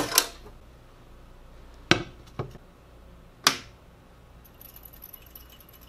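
Three sharp switch clicks between about two and three and a half seconds in, as the room lights go off and a UV light table is switched on. After that, a faint steady high-pitched whine sets in from the lamp's fluorescent tubes starting up.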